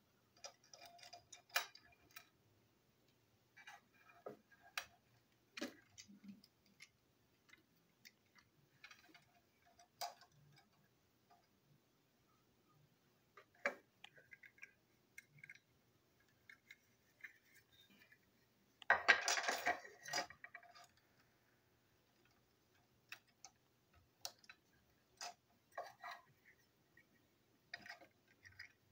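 Scattered light clicks and taps of a plastic toy train engine's body, chassis and wheels being handled and fitted back together, with one louder rustle lasting over a second about two-thirds of the way through.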